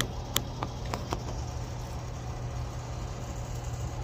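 A vehicle engine idling with a steady low hum, with a few light clicks in the first second or so.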